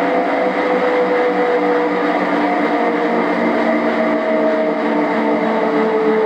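Specialized S-Works Ground Control mountain-bike tyre running on the motor-driven drum of a rolling-resistance test machine: a steady whir with a hum of several tones that slowly shift in pitch.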